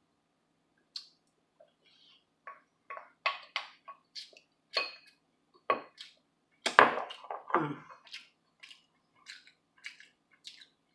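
Close-miked eating of quinoa and kale: a string of short, irregular chewing clicks and mouth smacks, a few a second, with a louder cluster about seven seconds in.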